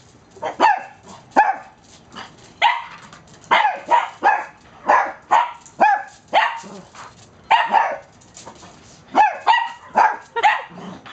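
Two small dogs, a Cavalier King Charles Spaniel puppy and a toy poodle, barking back and forth at each other: about a dozen short, sharp barks at uneven intervals, with a pause of about a second and a half shortly before the end.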